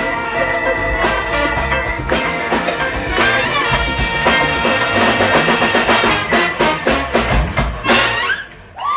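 Big band with saxophones, trumpets, trombones, electric guitar and drum kit playing a funky tune with heavy drum hits, ending on a big accented final chord just before eight seconds in that cuts off sharply.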